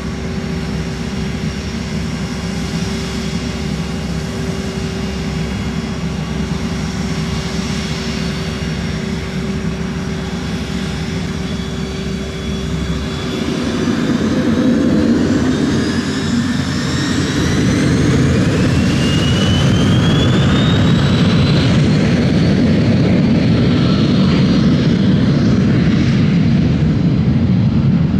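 Twin Williams FJ44 turbofan engines of a Cessna Citation CJ2+ business jet running with a steady whine. About halfway through the noise grows louder and a whine rises in pitch over several seconds as the engines spool up toward takeoff power, then holds loud and steady.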